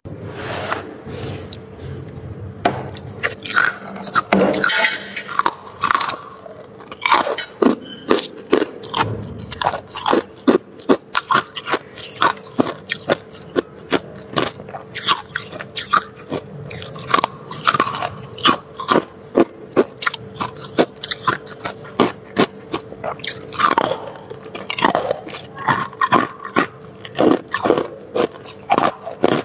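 Freezer frost being bitten and chewed, a close run of sharp crunches, several a second at times. A steady hum runs underneath.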